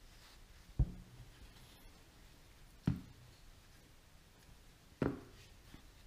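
Three dull thumps about two seconds apart, over faint room tone.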